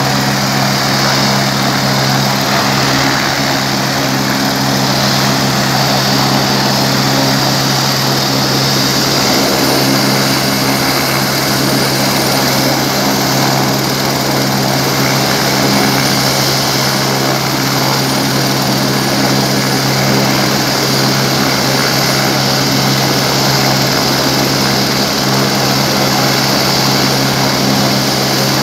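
Helicopter turbine and rotor running steadily: an even engine drone with a constant high turbine whine.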